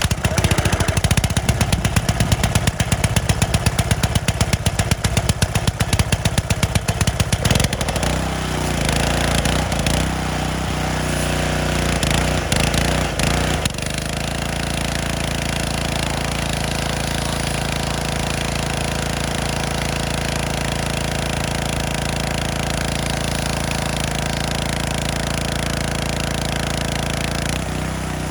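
Small gasoline engine of a pressure washer just started after sitting a while. It runs with a rapid, rough pulsing for the first seven or eight seconds, its pitch wavers for several seconds, and it settles into a steady run from about fourteen seconds in.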